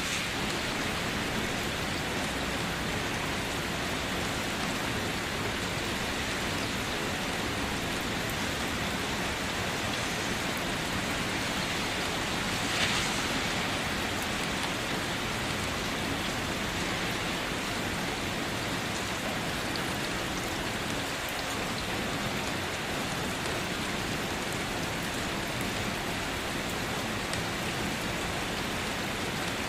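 Light rain falling in a steady hiss of drops, with one brief louder splash of drops about halfway through.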